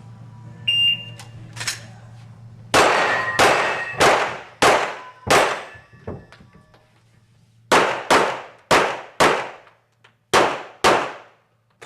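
A shot timer beeps once. Then a handgun fires eleven times in three quick strings: five shots about two-thirds of a second apart, a pause, four more, then two, each shot ringing out with a short echo.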